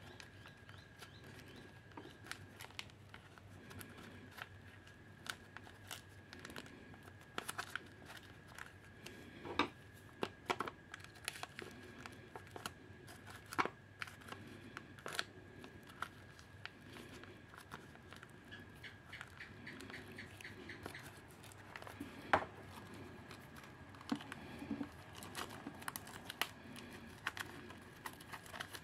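Faint crinkling and tearing of thin clear plastic being pulled off a printer's plastic waste ink absorber unit, with scattered sharp clicks and scrapes from the housing being handled.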